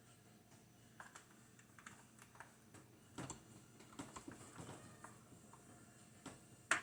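Faint, irregular clicks and taps of hard plastic toy parts being handled and fitted, the front landing gear going onto a 1986 G.I. Joe Tomahawk helicopter model, with one sharper click near the end.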